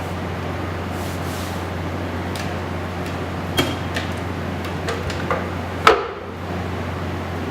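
A few separate light knocks and clicks of wood being handled, the loudest about six seconds in, over a steady low hum.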